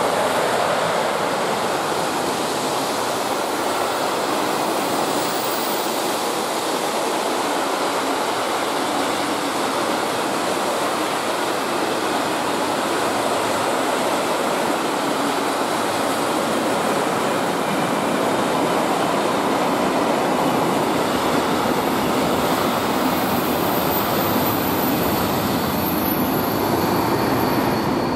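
Freight train of tank and covered wagons, hauled by an electric locomotive, passing close by: a loud, steady rush of steel wheels rolling over the rails that holds even until the last wagon clears near the end.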